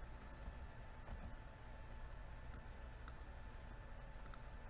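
Computer mouse clicking: single clicks about two and a half and three seconds in, then a quick double click near the end, over a faint steady hum.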